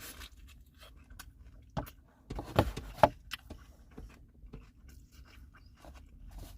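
Close-up chewing of a mouthful of fish taco: soft, irregular mouth clicks and small crunches, with a louder cluster and one sharp click about two and a half to three seconds in.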